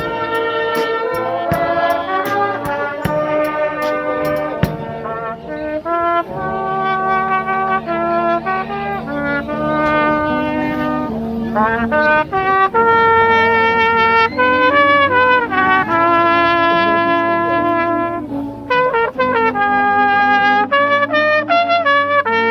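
Brass band of trumpets and euphoniums with a drum kit playing a tune in sustained melody notes. A quick ticking cymbal beat sounds through the first few seconds.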